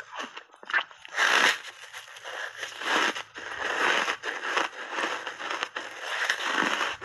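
Crunching of a chunk of reshaped ice thickly coated in matcha powder, bitten and chewed with the mouth close to a lapel microphone. A big loud crunch comes about a second in, then steady chewing crunches.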